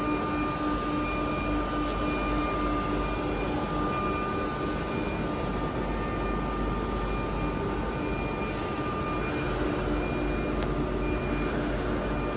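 Six-sided CNC panel drilling machine running, a steady mechanical hum with held whining tones. A single sharp click comes near the end.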